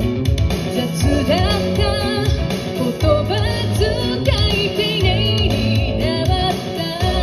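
Band music with guitar, bass and a sung melody, playing steadily.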